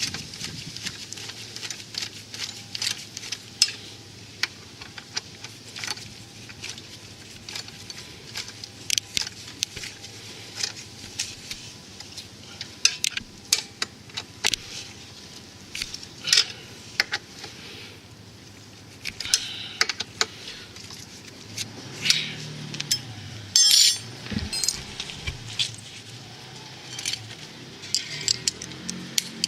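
Irregular sharp metallic clinks and clicks of hand tools and metal brake parts being handled, with a denser, louder clatter about three quarters of the way through.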